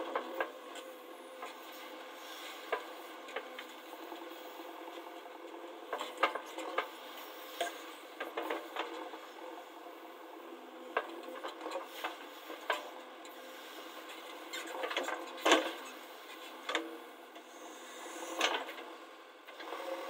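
JCB 3DX backhoe loader's diesel engine running steadily as the backhoe bucket digs through loose soil, with irregular knocks and scrapes from the bucket and arm, the loudest about fifteen seconds in.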